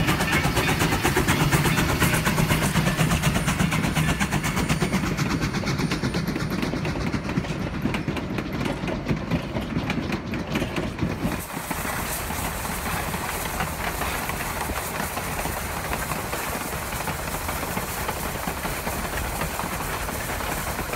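Durango & Silverton No. 493, a K-37 class 2-8-2 narrow-gauge steam locomotive, running under steam with a fast rhythmic beat from its exhaust and running gear. The sound changes abruptly about halfway through.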